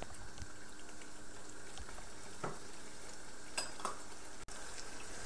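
Chicken curry frying in a pan with a steady sizzle, stirred with a spatula that gives a few light clicks against the pan, as its liquid cooks off in the bhuna stage.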